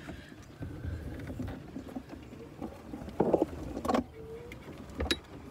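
Long-handled trash grabber working at a piece of roadside litter, a mower-crushed plastic bottle: rustling and scraping with a few sharp crackles a little past halfway and a click near the end.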